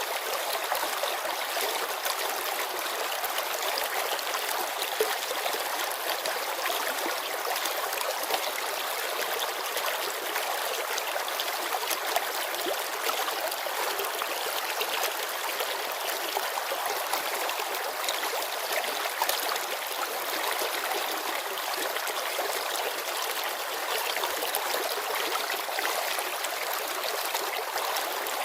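A shallow mountain river babbling over stones: a steady rush of water with small splashes and gurgles scattered through it.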